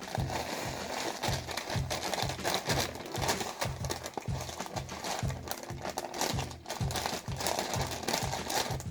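Plastic cracker bag crinkling and crunching as cheese-flavoured Ritz Bits crackers are handled and crushed, over background music with a steady beat.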